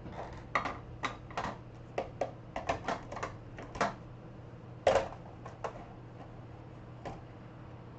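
Quick irregular clicks and taps of small hard tools and parts handled on a workbench, closely bunched for the first five seconds, the loudest about five seconds in, then a few scattered ones, over a steady low hum.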